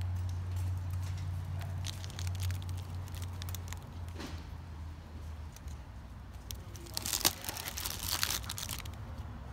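Metallic foil pot wrapper on a potted Christmas cactus crinkling as it is handled, in scattered crackles with a louder run of crinkling about seven to eight and a half seconds in. A steady low hum runs underneath.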